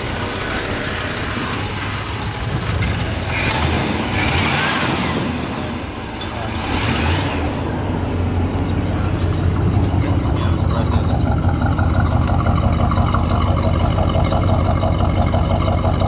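1968 Oldsmobile 442's Rocket 400 V8 running, heard through its trumpet exhaust. Its note rises and falls a few times in the first half, then settles about eight seconds in into a louder, steady idle with a deep, even pulse.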